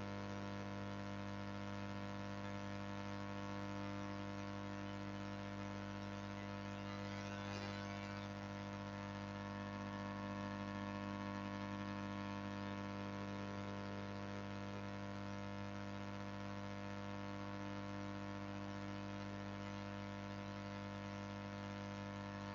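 Steady electrical mains hum with a faint buzz, unchanging throughout.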